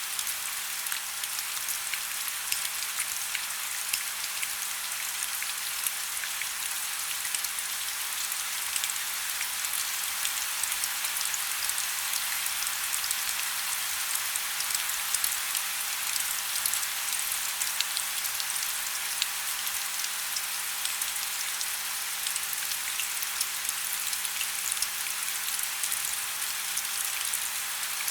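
Steady rain falling: a dense, even hiss with many small drop ticks in it.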